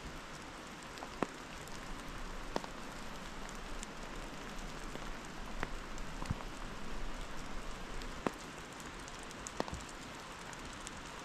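Steady rain falling, with single drops now and then striking close by as sharp ticks.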